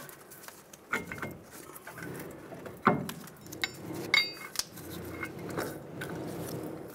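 Metal clinks and knocks as a rusty truck steering knuckle and wheel hub are worked loose and slid off the front drive axle, with the loudest clanks about three and four seconds in, the second ringing briefly.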